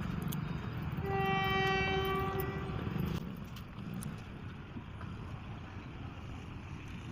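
Train horn sounding once for under two seconds, about a second in, over the steady low rumble of the train.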